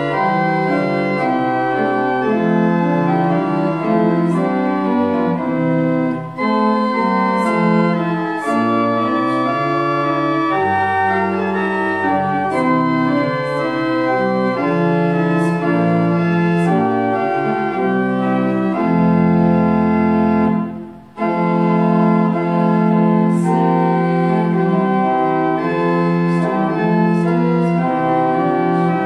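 Church organ playing a hymn, with two women singing along. Just past two-thirds of the way through, the music holds a low chord, stops briefly, and then starts again.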